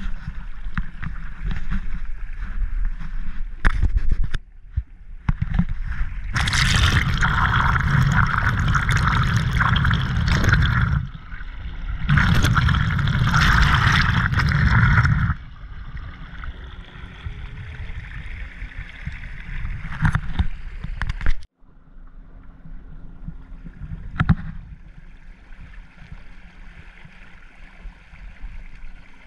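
Water rushing along the hull of a moving canoe, over a steady low rumble. Twice, from about six to eleven seconds and from twelve to fifteen seconds, it turns into much louder, harsher splashing right at the water's surface.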